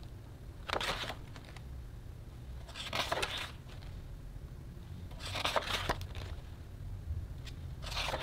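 Pages of a hardcover photobook being turned by hand, four paper rustles about two and a half seconds apart.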